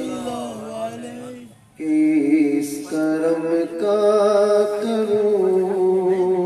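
A man's solo voice singing a naat into a microphone in long held notes, with a short break about one and a half seconds in.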